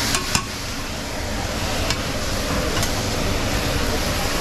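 Vegetables sizzling on a hot steel teppanyaki griddle, a steady hiss, with a few sharp clicks of a metal spatula against the plate.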